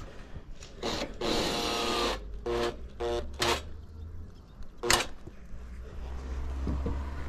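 Makita 18V cordless drill-driver driving a screw into a roof verge tile: a short blip, a run of about a second, then quick short bursts of the motor as the screw is seated, with one more brief burst a little later. A steady low hum runs underneath.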